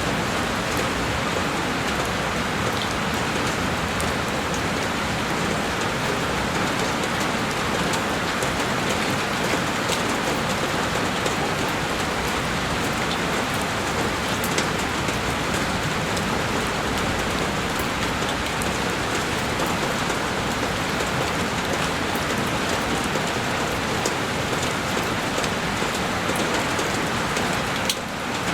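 Heavy rain falling steadily on a window pane, a dense even hiss with scattered sharp drop ticks. The level dips briefly near the end.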